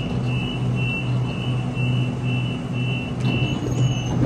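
Door-closing warning beeps of a Sydney Trains double-deck electric train standing at the platform: a high tone pulsing about twice a second over the train's steady low hum. The doors shut with a brief knock about three seconds in.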